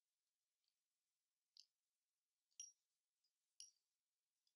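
Faint, sharp metallic clicks with a slight ring, about one a second, from the metal parts of an Apeks US4 first stage's DIN connector and handwheel being handled and fitted together.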